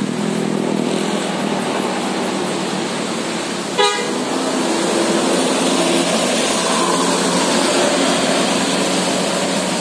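A bus's 18-trumpet telolet musical air horn sounding a stepped tune of several held notes over steady street noise. A brief loud blast comes about four seconds in.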